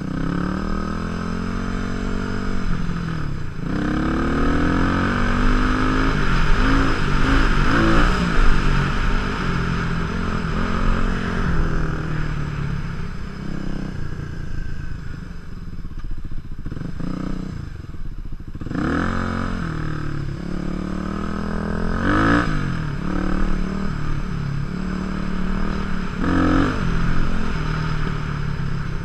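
Supermoto motorcycle engine running hard, its pitch rising and falling repeatedly as the rider accelerates, shifts and rolls off the throttle, heard from the rider's helmet.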